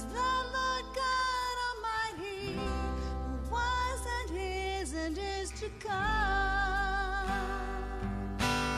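Live worship band playing a slow praise song: a woman sings the lead melody over acoustic and electric guitars and bass, with long held bass notes underneath.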